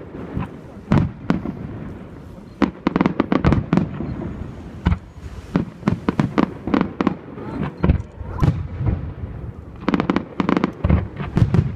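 Fireworks display: rapid volleys of sharp bangs and crackling reports, coming in clusters with brief lulls between them.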